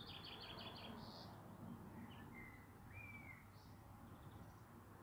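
Faint songbird calls: a quick run of repeated high notes in the first second, then a few short chirps and a slurred call a couple of seconds in.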